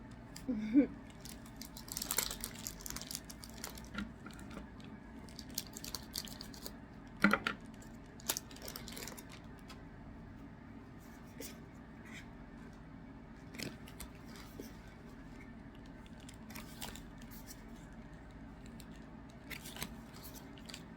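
Foil trading-card booster packs being cut and torn open and cards handled: scattered crinkles, snips and small clicks, the sharpest about seven seconds in.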